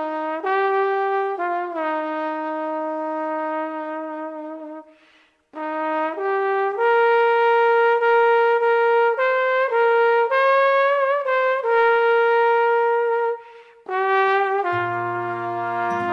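A slow solo trumpet melody of long held notes, with short breaks between phrases. Near the end, lower brass chords join beneath it.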